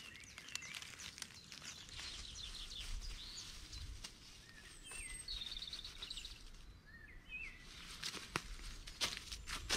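Small forest birds calling: several short, curving whistles and one quick trill. Footsteps crunch on dry fallen leaves near the end.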